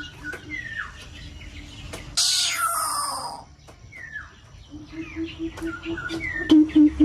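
A coucal gives its deep hooting call, a run of low hoots at about four a second that starts about two-thirds of the way in and grows louder near the end. Small birds chirp with short falling notes throughout, and a harsh call sweeping down in pitch sounds about two seconds in.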